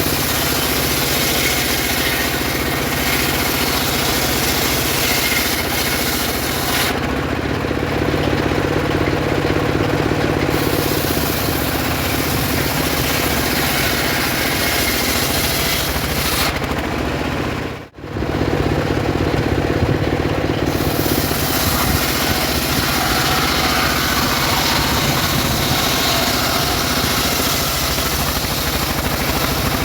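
Homemade circular saw running steadily while ripping sengon wood into boards: a constant low drive hum under the hiss of the blade cutting, which thins out twice when the blade runs free. The sound drops out for a moment past the middle.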